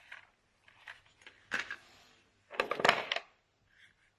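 Clicks and scraping as a wooden-framed toy drawing board and its pen are handled, loudest in a short rattling clatter about two and a half seconds in.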